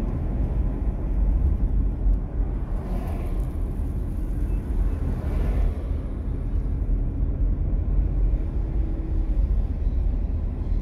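Steady low road and engine rumble inside a moving car's cabin, with two brief swells of hiss about three and five and a half seconds in.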